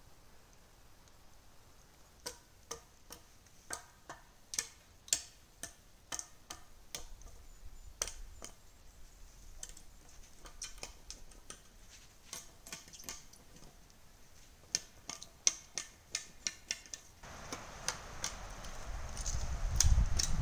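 Footsteps crunching on dry leaves and twigs, about two steps a second, as someone walks toward the camera. The steps grow louder and turn into close rustling near the end.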